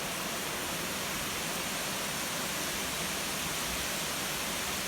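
Heavy rain pouring down in a cloudburst, a steady even hiss with no letting up.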